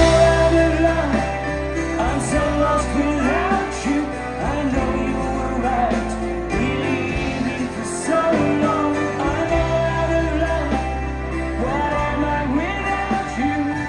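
A pop-rock song with singing over a band backing of guitar and steady bass.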